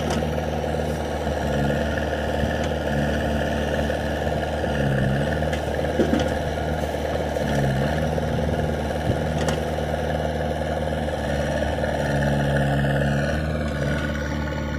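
Diesel engine of a JCB 3DX backhoe loader running at work while it digs and loads soil, its pitch dipping and rising several times as the hydraulics take load. There are a couple of short sharp knocks.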